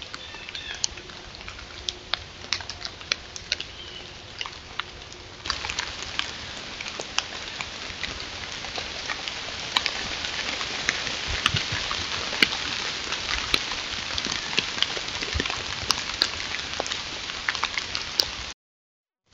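Deer moving over dry fallen leaves, picked up by a trail camera's microphone: a crackling rustle full of small sharp clicks over a steady hiss. The hiss steps up about five seconds in, and the sound cuts off abruptly near the end.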